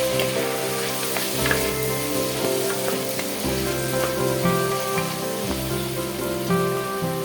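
Food frying in hot oil in a pan, a steady sizzle with a few utensil clicks from stirring, under background music with a simple repeating tune.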